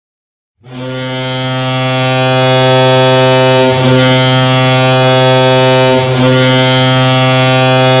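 Colorado Avalanche arena goal horn sounding one long, low, steady blast that starts about half a second in and swells over the first couple of seconds, wavering briefly twice.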